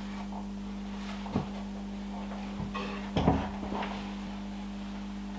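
A few light knocks and clatters of objects being handled, one a little after a second in and a short cluster past the three-second mark, over a steady low hum.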